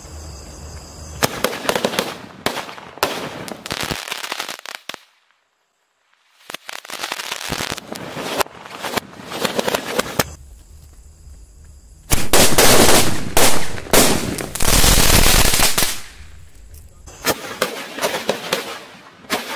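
A sky-shot firework combo with small firecrackers attached, going off: rapid sharp cracks and bangs starting about a second in, and a dense, loud stretch of crackling and hissing for about four seconds two-thirds of the way through. Scattered single bangs follow near the end.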